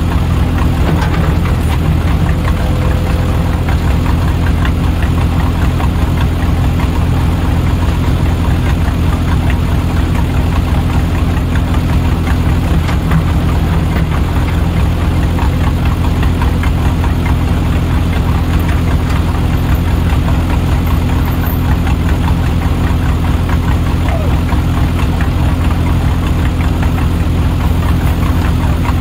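Diesel engine of heavy earthmoving equipment running steadily at a low, even speed, with a fast regular pulse.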